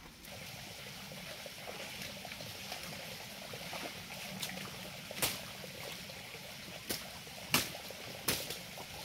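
Water trickling and rushing in a small forest stream, a steady hiss, with a few sharp clicks in the second half.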